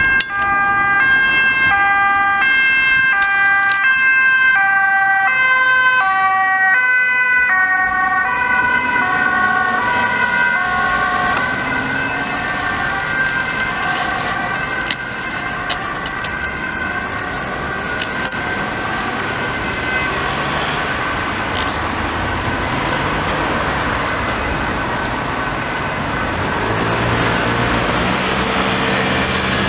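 Dutch ambulance's two-tone siren alternating high and low about twice a second, passing and fading away over the following ten seconds or so. Road traffic follows, with a heavy vehicle's engine near the end.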